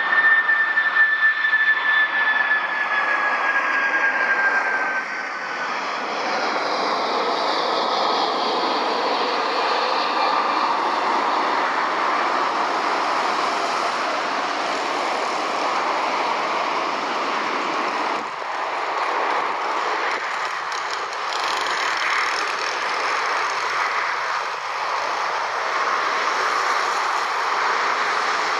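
Airbus A380's Rolls-Royce Trent 900 jet engines at taxi power: a high whine that falls in pitch over the first five seconds or so, then a steady rushing engine noise.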